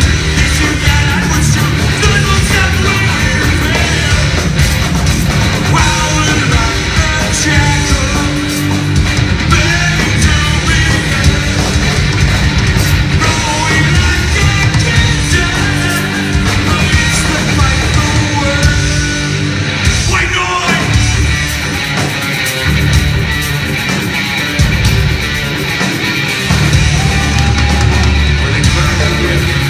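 Heavy metal band playing live, with distorted electric guitars, bass and drums under shouted vocals, as heard in a live concert recording.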